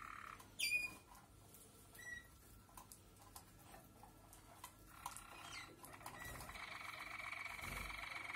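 Malinois (Waterslager) song canaries: one sharp call about half a second in, a few faint chirps, then from about six seconds a canary starts a steady, rapidly pulsing rolled song tour.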